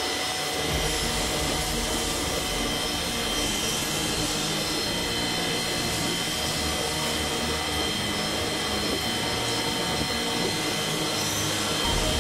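Four-head CNC wood router running, its high-speed spindle motors giving a steady whine of several high tones over a noisy mechanical hum.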